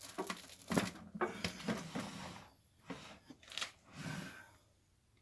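Steel tire irons scraping and clicking against a dirt-bike rim while the tire's bead is levered over, with rubber rubbing against metal. The scraping is densest over the first two and a half seconds, followed by scattered clicks.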